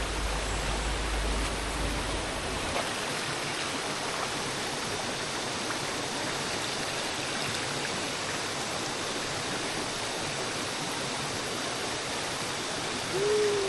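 Valley stream water rushing steadily, an even hiss of flowing water. A low rumble underneath stops suddenly about three seconds in, and a short falling tone sounds near the end.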